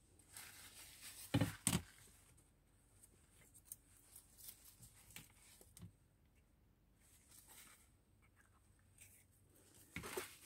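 Paper and card being handled on a tabletop: faint rustling and small scattered taps, with two sharp knocks about a second and a half in and another near the end.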